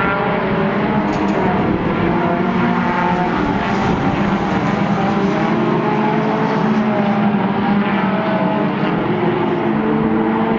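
Several four-cylinder mini stock race cars running at speed around a road course. Their engine notes overlap and rise and fall in pitch as the cars accelerate and brake.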